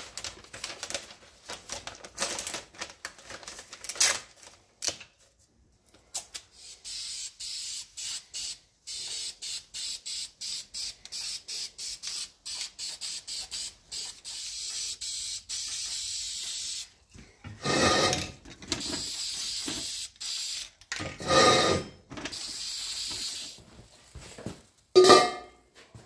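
Masking paper and tape rustling and crinkling, then an aerosol spray can of metallic satin engine paint hissing in many short bursts, a couple a second, while painting a wheel's centre, with longer sprays later. A few louder knocks and clatters come between the sprays near the end.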